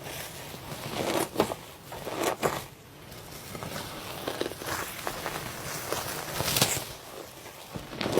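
Iceberg slime being squished, its hardened top crust crackling and crunching in irregular bursts. The loudest bursts come about a second in, at two and a half seconds, and at six and a half seconds.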